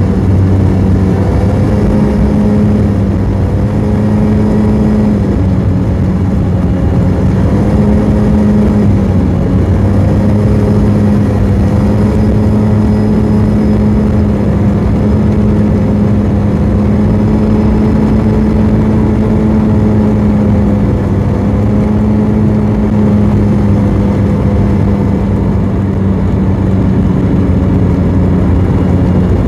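BMW maxi scooter's engine and stock exhaust running steadily at highway cruising speed, heard from the rider's seat under a constant rush of wind. The engine note dips briefly now and then as the throttle eases.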